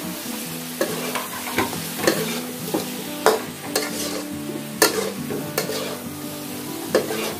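Metal ladle scraping and knocking against a wok as shell-on shrimp are stir-fried in sauce, with a steady sizzle underneath. The knocks come irregularly, roughly once or twice a second.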